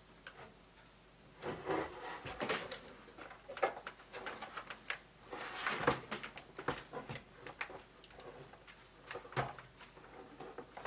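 Irregular clicks, taps and scrapes of hands working at a Commodore 64's plastic case, trying to pry the tight case apart. The sounds start about a second and a half in.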